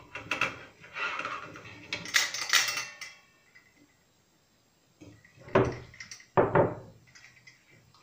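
Black mulberries sliding and tumbling from a steel bowl into a stainless-steel pot, a dense rattling clatter over the first three seconds. After a quiet pause come two sharp metal knocks, a bit under a second apart, as the bowl and pot are handled.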